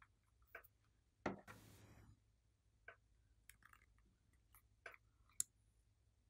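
Faint clicks and taps of a plastic lip gloss bottle and its cap being handled, with a louder click about a second in followed by a brief scraping rustle.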